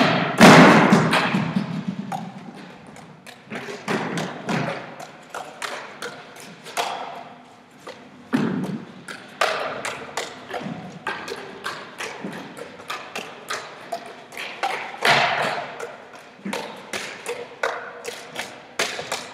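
Juggling clubs smacking into the hands in a quick, irregular run of catches, each one echoing in a large hall, with a few louder thumps along the way.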